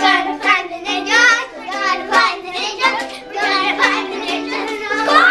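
Young children singing a song together over a steady, pitched instrumental accompaniment.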